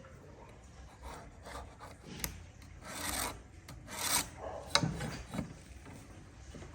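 Hand scraping or rasping strokes on wood, a few irregular strokes with some sharp knocks between them.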